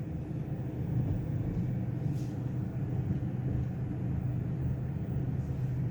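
Steady low hum of a car heard from inside the cabin.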